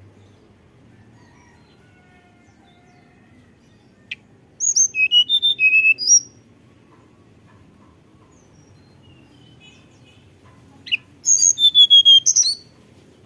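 Caged male hill blue flycatcher (tledekan gunung) singing: two short bursts of quick, high, flute-like whistled notes, each opened by a sharp note, one about four seconds in and one near the end.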